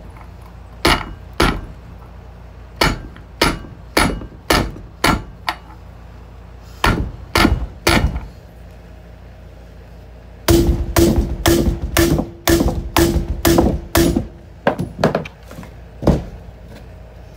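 Hammer tapping a socket set on the outer edge of a new wheel bearing, driving the bearing into a dirt bike wheel hub: sharp metallic taps in short bursts. A little past the middle comes a quick run of about eight blows, with the socket ringing between them.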